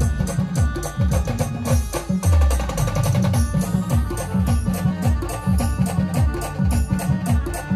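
A band playing loud, percussion-heavy music through a sound system: a fast, dense drum pattern with repeated deep drum hits that drop in pitch, over a sustained melody.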